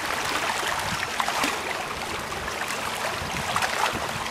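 Sea water lapping and splashing against shoreline rocks: a steady hiss of small waves.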